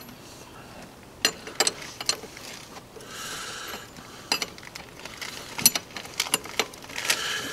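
Hand wrenches clicking and clinking against the steel nuts and hose fittings of a hydraulic top link: a few sharp metallic clicks at irregular intervals, with brief scraping between them.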